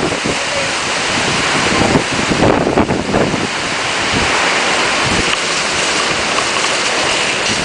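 Water gushing steadily from a burst water pipe damaged in the hurricane: a loud, continuous rushing spray.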